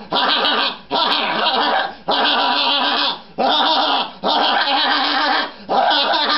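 A puppeteer's voice giving a ghost puppet's exaggerated spooky laugh, 'ha-ha-ha', in about eight loud bursts of under a second each, separated by short breaths.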